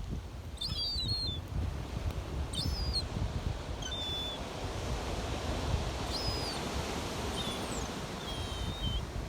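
Gulls calling: about six short, high cries spaced a second or two apart, over a steady low rumble of surf and wind.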